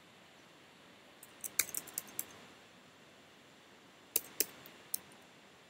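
Faint computer keyboard key presses: a quick run of about six clicks just over a second in, then three more about four seconds in.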